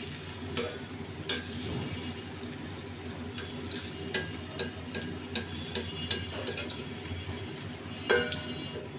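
Batter fritters sizzling steadily in hot oil in a steel karahi, with scattered clinks of a metal spoon against the pan. The loudest clink comes near the end.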